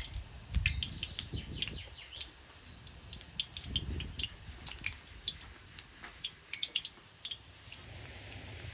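Small birds chirping in short, scattered calls, with a couple of low dull knocks from handling at the stove. About three-quarters of the way in, a steady sizzling hiss rises as the breaded stuffed meatballs fry in deep hot oil.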